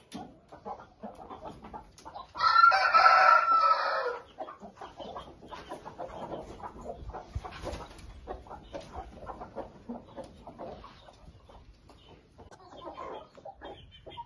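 A rooster crows once, loud, for nearly two seconds about two seconds in. Hens and young chickens cluck in short, scattered calls through the rest.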